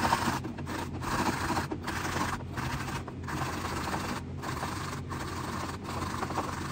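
An ingredient for dog food being ground by hand: a steady gritty rubbing and scraping, broken by short pauses every half second to a second. It is ground rather than chopped so that it is easier for the dogs to digest.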